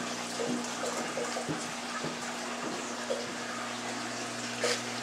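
Water running and splashing in a saltwater aquarium's sump system, over a steady low hum, with small bubbling sounds. There is a brief louder splash near the end.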